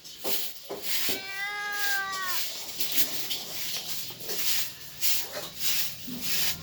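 A cat meowing: one long meow about a second in that drops in pitch at its end, then several seconds of scratchy rustling noise.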